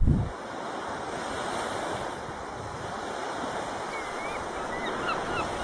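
Ocean waves washing on a beach, a steady rushing wash, after a low thump at the very start. A few faint high chirps come in near the end.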